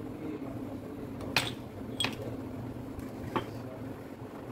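Three sharp metallic clicks in about two seconds, the first the loudest, as small steel parts of a dismantled cordless impact driver's hammer mechanism are handled, over a steady low hum.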